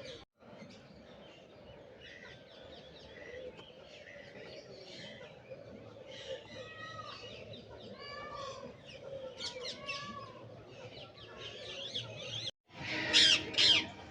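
A mixed flock of aviary birds calling and chirping together, many short calls overlapping. After a brief dropout near the end, louder, shriller calls take over.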